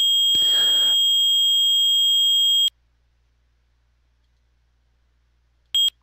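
Fire alarm control panel trouble buzzer, here the simulator's synthetic version, sounding one steady high-pitched tone: the trouble signal for a disconnected zone 2 detection circuit. It cuts off suddenly about two and a half seconds in, and a short beep of the same tone sounds near the end.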